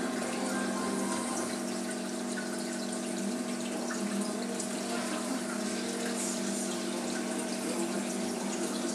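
Reef aquarium's pump and water circulation: a steady hum under an even rush of running water.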